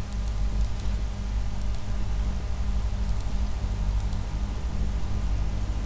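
Computer mouse clicking a few times, the quick clicks mostly coming in pairs during the first four seconds, over a steady low hum.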